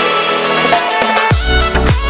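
Background music: sustained melodic instruments, with a deep bass and drum beats coming in about one and a third seconds in.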